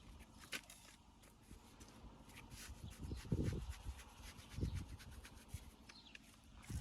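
Stone being handled on a dry stone wall: scattered light clicks and scrapes, with two dull low thuds a little after halfway.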